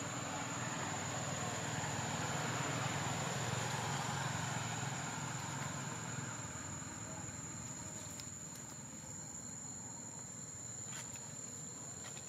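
Steady high-pitched insect drone from crickets or cicadas. A broad rushing noise swells over the first few seconds and fades away by the middle, and a few faint clicks come near the end.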